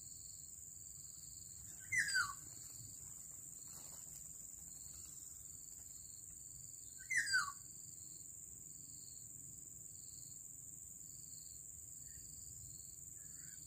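Two harsh, nasal calls of a black-naped oriole, each falling in pitch, about five seconds apart. Under them runs a steady high insect whine with a slower pulsing chirp.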